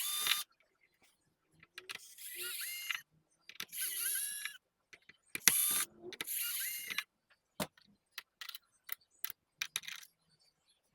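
Small electric screwdriver running in five short bursts, backing out screws, followed by a run of light clicks.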